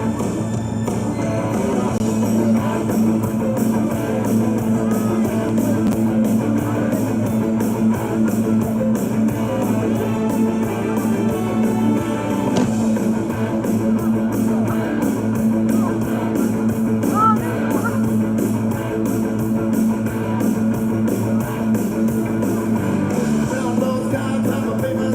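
Rock music with guitar and singing over a steady beat.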